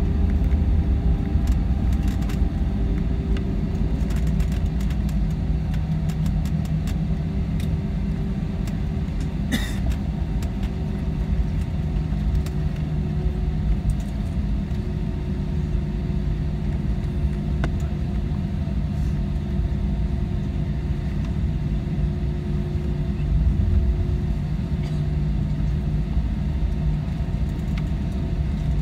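Airbus A320 cabin noise during the landing rollout: a steady low rumble from the engines and the wheels on the runway, with a steady engine hum, as the airliner slows on the ground with its spoilers raised. A single click about ten seconds in.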